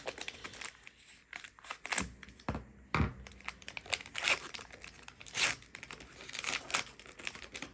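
Scissors cutting open a plastic trading-card pack, with the wrapper crinkling and tearing as it is pulled apart; a couple of dull knocks about two and three seconds in.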